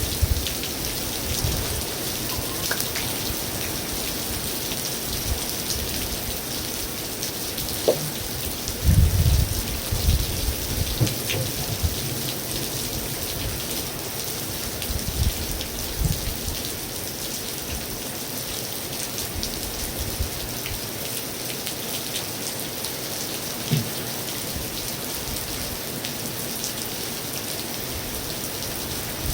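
Steady heavy rain drumming on a metal roof: a dense, even patter of drops. A few low rumbles come through near the start and again about nine to eleven seconds in.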